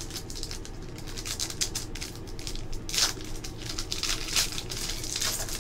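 Foil trading-card pack wrapper crinkling and tearing as it is pulled open, with irregular rustling and a sharper tear about three seconds in.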